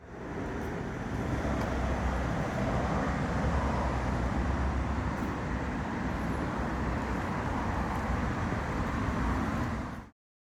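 Pressure washer jet blasting moss, mud and lichen off a driveway, a steady spray-and-motor noise that cuts off suddenly near the end.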